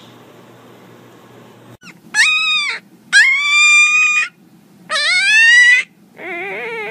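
Black-and-tan puppy howling: four drawn-out, high-pitched calls with short gaps, starting about two seconds in. The third call rises in pitch and the last one wavers.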